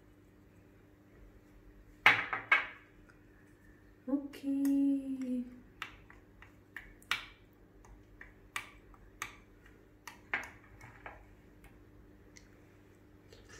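A glass salt shaker shaken over a bowl of soup in two quick bursts, then a short closed-mouth "mmm" falling in pitch as the soup is tasted. After that a spoon clicks and taps lightly against the ceramic bowl a dozen or so times at an uneven pace while the soup is stirred.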